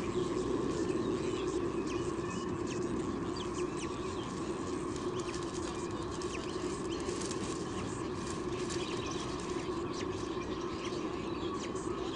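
White-bellied sea eagle nest: short, high chick peeps and the rustle of the adult moving about on the leaf lining, over a steady low hum.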